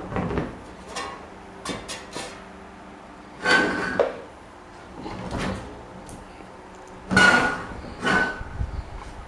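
Parts of an old rusty table fan being handled: a series of separate knocks and clanks. The loudest, longer ones come about three and a half and seven seconds in, some with a brief metallic ring.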